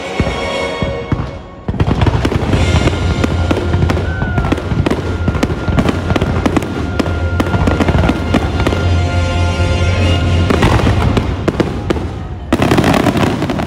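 Aerial fireworks finale: a dense, rapid barrage of shell bursts and crackle over a steady deep rumble. It starts suddenly a little under two seconds in, and a louder volley comes near the end.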